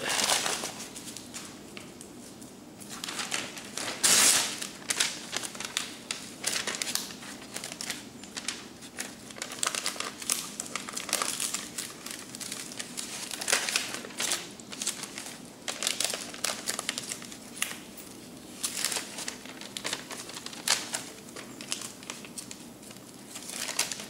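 Magazine paper crinkling and rustling in irregular crackles as the sheet is handled, pressed onto and peeled off wet spray paint, with the loudest crackle about four seconds in.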